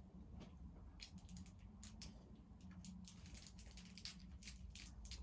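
Faint wet mouth sounds of a child licking and sucking a frozen ice lolly: a quick, irregular run of small clicks and smacks starting about a second in, over a low room hum.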